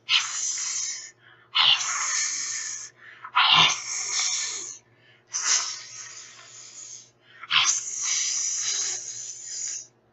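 A person hissing through the teeth in imitation of an animal: five long hisses of about one to two seconds each, each starting sharply with a short gap between them.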